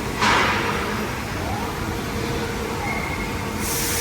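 Steel-fabrication factory machinery running steadily, with a sudden short hiss about a quarter second in that dies away within a second. A brighter steady hiss sets in near the end.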